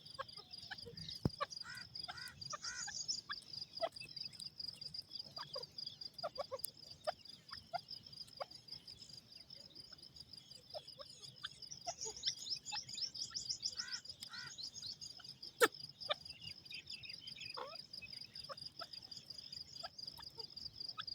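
Game bird calling in bursts of rapid, repeated chirping notes, twice, over a steady high pulsing insect trill; one sharp click partway through.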